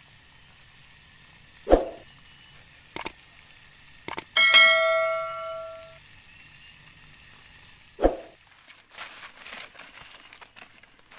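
Two dull thuds and a few sharp clicks, with one metallic ring struck in the middle that dies away over about a second and a half.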